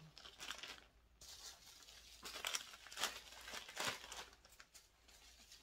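Faint crinkling and rustling of packaging being handled, a few short crinkles at a time.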